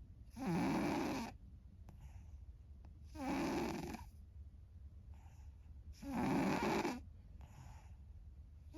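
A sleeping domestic cat snoring loudly: three loud snores about three seconds apart, each lasting about a second, with a much fainter breath sound between each pair. A fourth snore starts right at the end.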